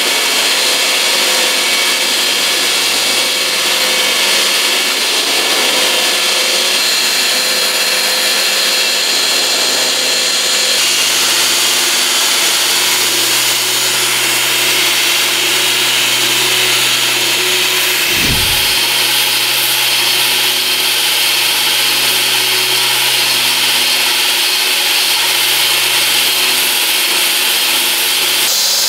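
Homemade belt grinder running under load, its abrasive belt grinding metal with a dense, even hiss over the steady hum of its electric motor.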